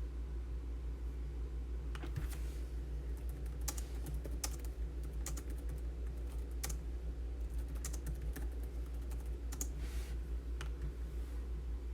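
Scattered keystrokes and clicks on a computer keyboard, single taps and short clusters a second or more apart, over a steady low hum.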